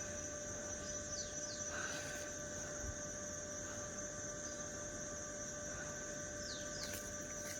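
A steady hum with a thin high constant tone over faint background noise, with two faint short falling chirps, about a second in and again near the end.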